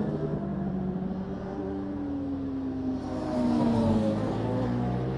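Sport motorcycle engines revving hard as bikes ride through a bend on a race circuit. The engine note slides down and back up as they pass, and it gets louder about three seconds in as a second bike comes through.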